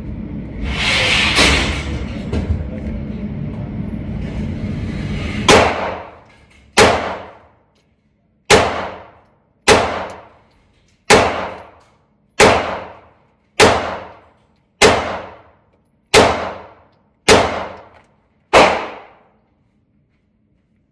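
FMK 9C1 Gen 2 9mm pistol firing eleven shots at a steady pace, about one every 1.2 seconds, each with a short echoing tail. It cycles a mixed magazine of cheap ammunition without a stoppage. Before the shots there are a few seconds of handling noise.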